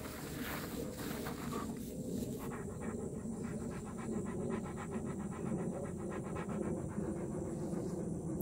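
Alaskan Malamute panting quickly and evenly.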